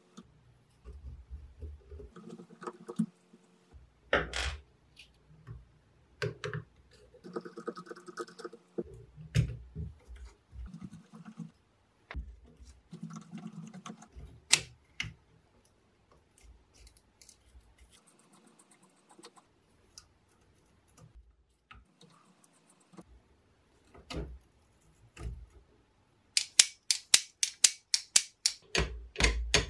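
A screwdriver and small metal parts clicking, tapping and scraping in a metal tool housing as screws are undone and a trigger switch is worked loose, in scattered irregular knocks. Near the end comes a quick run of loud, evenly spaced strokes, about six a second.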